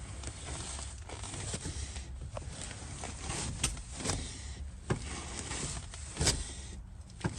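Brake pedal of a Ford Mustang II being pumped by foot to push fresh brake fluid through a newly replaced rear brake line toward the opened rear bleeder screws, giving a few sharp knocks and creaks in the second half over a low steady rumble.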